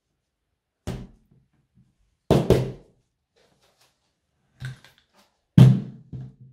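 A handful of short, heavy thumps with a deep drum-like boom, spaced irregularly, each dying away quickly; the loudest come about two and a half seconds in and near the end.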